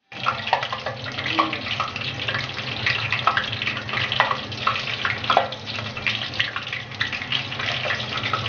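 Cornstarch-coated pork pieces sizzling and crackling in hot cooking oil as they are dropped one by one into the pot, with steady crackling and scattered sharper pops.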